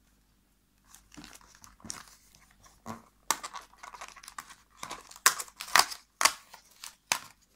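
Cardboard door of a Kinder advent calendar being pushed in and torn open by hand, crackling and tearing in a series of sharp bursts that get louder near the end as it comes free and the plastic insert behind it crinkles.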